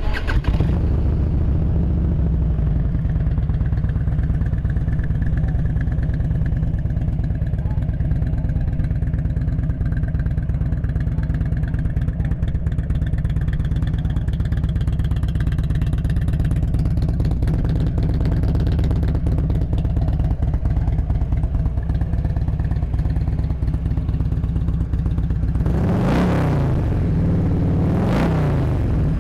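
2006 Harley-Davidson Street Glide's fuel-injected 88-cubic-inch V-twin idling steadily through Vance & Hines slip-on mufflers, then revved twice near the end, rising and falling in pitch each time. The motor sounds healthy.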